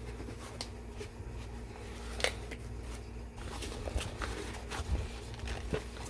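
Scattered small clicks and rustles of knife packaging being handled, with one sharper click about two seconds in, over a low steady hum.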